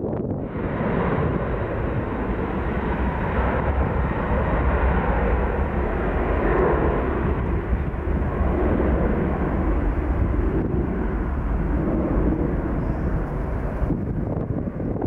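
Boeing 737 twin-jet airliner's engines at takeoff thrust: a loud, steady jet roar that swells within the first second.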